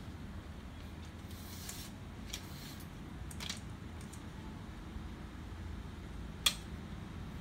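Plastic and metal parts of an HP LaserJet P3015 fuser assembly scraping and clicking as it is handled and taken apart, with one sharp click about six and a half seconds in, over a low steady hum.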